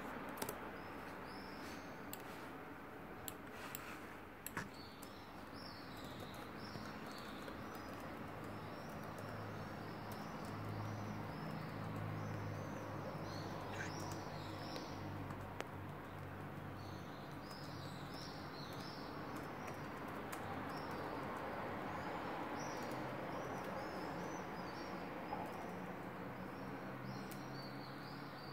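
Faint high chirping, repeated in clusters, with a few sharp keyboard clicks in the first few seconds and a low hum in the middle.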